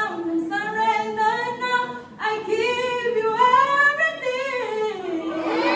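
A woman singing unaccompanied in long held, wavering notes, with a short breath about two seconds in and a final low note held steady near the end.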